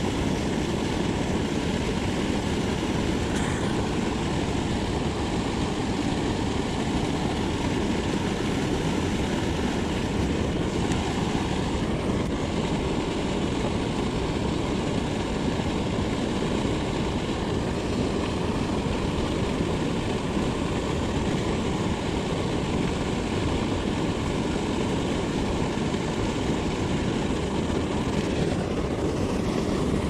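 Steady rushing of water pouring out of a concrete spillway pipe into a creek pool, an unbroken, even noise.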